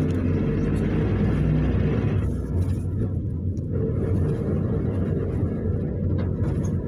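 Inside the cabin of a Luidor-225000 minibus built on the GAZ-322133 GAZelle: a steady low engine drone and road noise. The road hiss is heavier for the first two seconds, then eases, with a few light rattles near the end.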